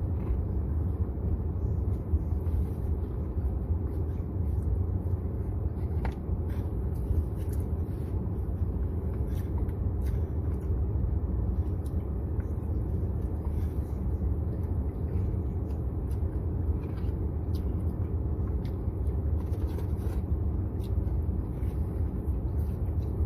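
Steady low rumble of a car heard from inside the cabin, with faint small clicks and rustles now and then.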